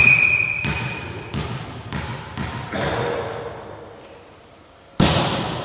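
A referee's whistle blows one steady note for just over a second, then a volleyball is bounced on the hall floor several times. About five seconds in, a hard hand strike on the ball, the serve, echoes through the hall.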